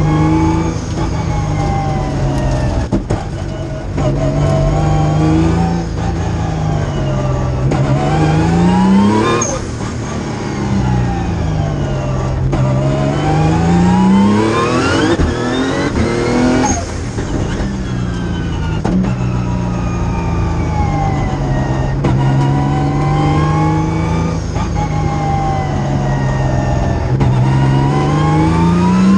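Cabin sound of a 1,000 hp Nissan March race car's engine under hard acceleration and lifting off between corners. The engine note climbs steeply in pitch and drops back several times, with the biggest climbs peaking about nine seconds in, again around seventeen seconds, and at the very end.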